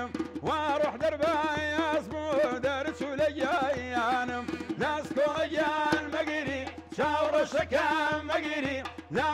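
Kurdish folk song: a singer's ornamented, wavering melody over instrumental accompaniment that holds a steady note beneath it with a low pulsing beat.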